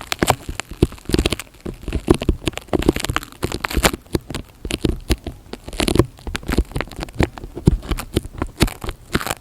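Close-miked ASMR trigger sounds: a dense, irregular run of crackles, clicks and taps from hands working materials against the microphone.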